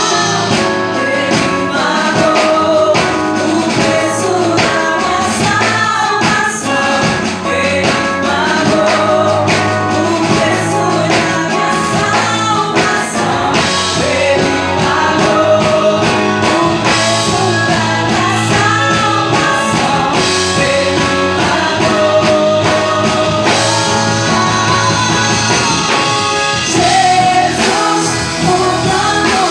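Gospel song sung by a female voice over a full instrumental backing with a steady beat.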